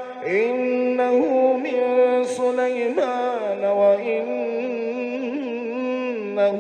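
A male reciter's unaccompanied Quran recitation in melodic tajwid style, one long held, ornamented note line that wavers and bends in pitch.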